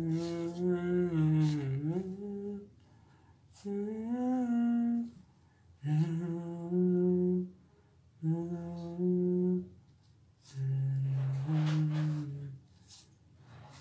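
A man humming a tune in five short phrases of one to two seconds each, the pitch stepping up and down, with brief pauses between them.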